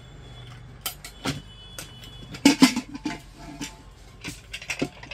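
Aluminium pressure cooker lid being worked loose and lifted out of the pot: a string of light metal clicks and clanks, the loudest cluster about two and a half seconds in, over a steady low hum.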